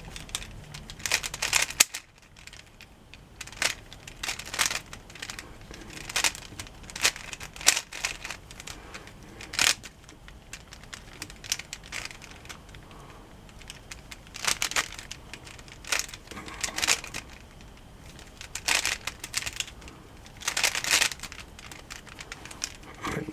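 Rubik's cube layers being turned by hand, plastic pieces clicking and clacking in short bursts of turns with pauses between.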